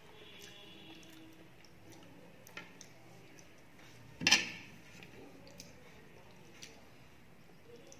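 Fingers picking food off a disposable plate, with one sharp clatter of the plate about four seconds in, between faint mouth clicks from chewing.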